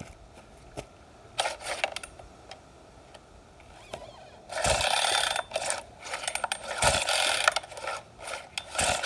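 Pull-start cord of a four-stroke chainsaw yanked twice, about five and seven seconds in, each pull a rasping whirr of about a second as the engine turns over without catching; light clicks and knocks of handling the saw in between. The starter is stiff to pull.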